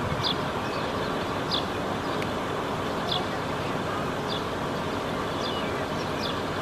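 Strong wind, a steady rushing noise, with short high chirps repeating about every second and a half.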